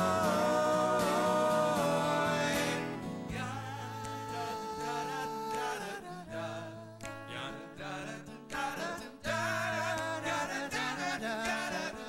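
Live band with several voices singing a held harmony, then a quieter instrumental stretch of acoustic guitar over bass from about three seconds in, building back up near the end.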